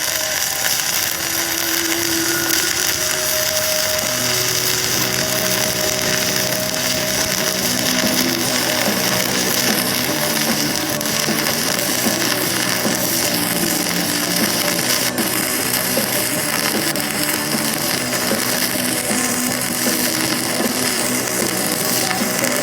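Self-shielded flux-cored arc welding with NR-305 Innershield wire fed from a Lincoln LN-25 Pro feeder: a steady, continuous arc crackle and hiss with no breaks.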